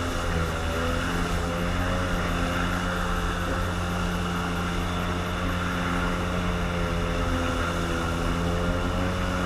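A small watercraft's motor running at a steady speed, its pitch wavering slightly, over a low rumble of wind and water.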